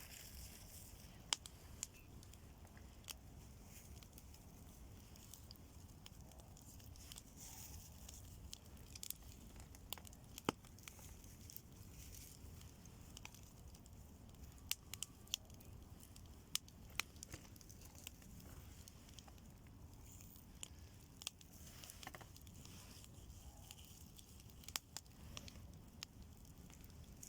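Bonfire crackling faintly, with irregular sharp pops and snaps as fresh green fern leaves burn on it.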